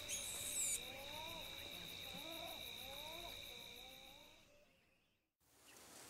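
Faint night-time wildlife: two steady high tones under a run of short animal calls, each rising then falling. It all fades out to silence about four and a half seconds in.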